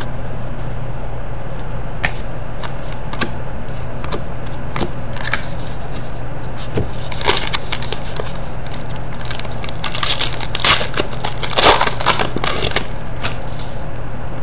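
Trading-card pack wrappers crinkling and tearing, and a stack of cards being handled and shuffled through, a run of quick clicks and rustles that is busiest and loudest from about seven to thirteen seconds in. A steady low hum sits underneath.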